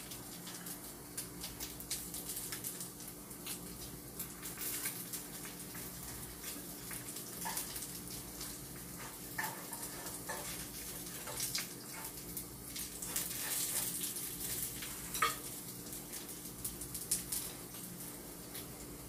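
Breaded pork cutlet pieces sizzling as they fry in a frying pan, with metal chopsticks clicking and scraping against the pan as the pieces are turned, over a steady low hum.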